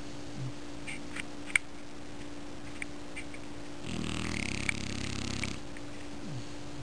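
French Bulldog snoring in its sleep: one long snore about four seconds in, lasting about a second and a half. Between breaths there are a few small clicks, with a sharp one about a second and a half in.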